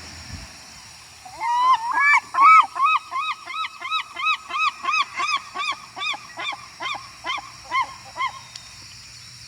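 A gull's long call: a few rising opening notes, then a rapid series of short, arched laughing notes, about three a second. The series is loudest at the start and dies away after about seven seconds.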